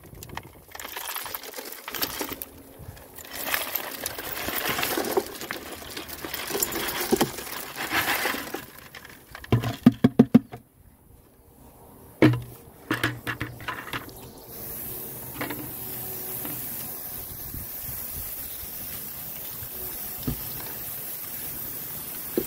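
Lumps of fire-opal-bearing rock poured out of a bucket onto a wire-mesh screen: stones clattering and rattling for about nine seconds, then a few loud knocks. From about two-thirds of the way in, the steady hiss of a garden hose spraying water over the rock pile.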